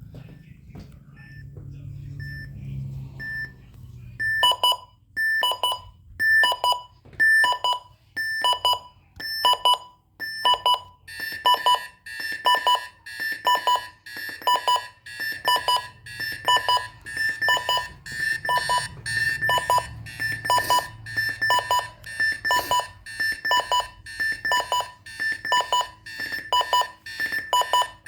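Alarm clock beeping in an even repeating pattern of about one and a half beeps a second. It starts faint, gets much louder about four seconds in, and a second, higher tone joins about eleven seconds in.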